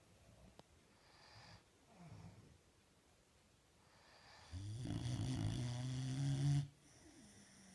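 Boxer dog snoring: faint breaths, then one long, loud snore starting about four and a half seconds in that cuts off sharply about two seconds later.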